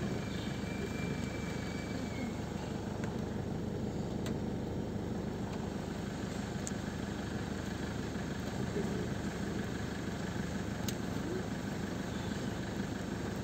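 Car engine idling steadily, heard from inside the cabin as a low, even hum.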